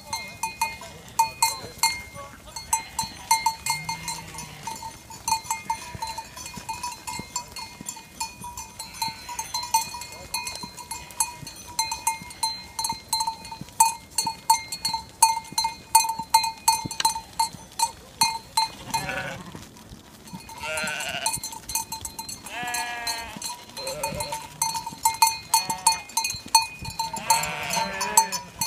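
A large flock of sheep on the move: many hooves clicking on the road, with a bell ringing steadily among them. In the second half, sheep bleat several times.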